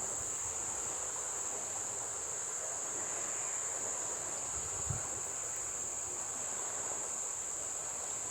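Insects chirring: a steady, unbroken high-pitched trill. A soft low thump about five seconds in.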